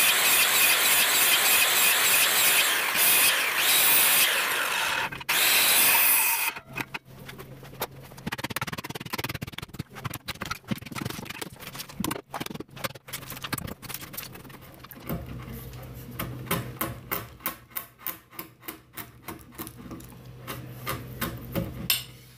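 A corded circular saw cuts kerfs across a timber beam for about six seconds, with a brief break near five seconds. Then a hammer knocks out the thin kerfed wood slices with quick, repeated sharp strikes.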